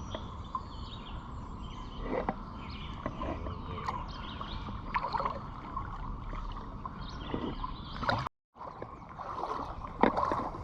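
Creek water splashing and running, with scattered light knocks. The sound cuts out for a moment about eight seconds in.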